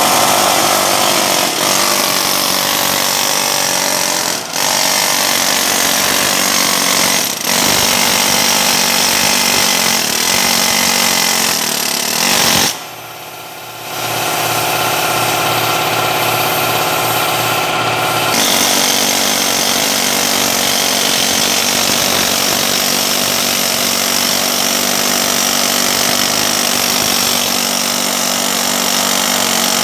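A loud power tool running almost without pause, with brief dips about four and seven seconds in and a short stop about thirteen seconds in.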